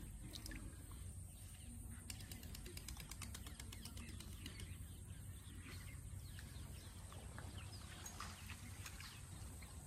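Outdoor ambience of small birds chirping again and again over a low steady rumble, with a rapid run of faint ticks about two seconds in.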